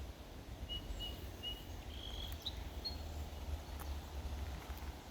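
Birds calling in short, thin, high whistled notes, several brief ones in the first half, over a steady low rumble.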